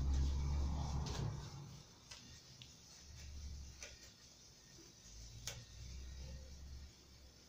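Kitchen knife cutting into the edge of a roasted nopal pad on a wooden cutting board: faint scattered clicks, a few sharper ones, over low dull rumbles.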